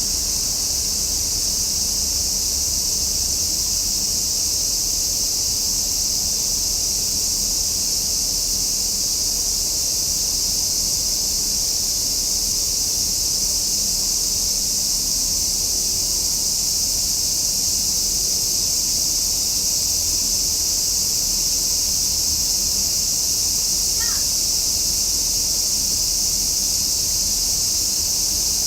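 A chorus of cicadas singing: a continuous, high-pitched buzzing drone that holds steady throughout. One short, faint call briefly cuts through about 24 seconds in.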